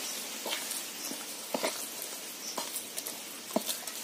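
A ladle stirring a wet flour-and-yogurt batter in a bowl: irregular soft taps and scrapes over a faint hiss.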